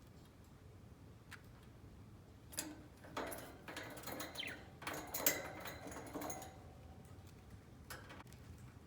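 Pet budgie making a flurry of quick clicks and a few short chirps for a few seconds in the middle, with single faint clicks before and after.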